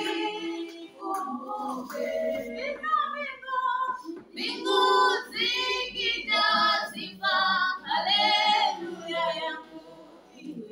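Girls' voices singing a song together, with long held notes. Loudest from about four seconds in, dropping away near the end.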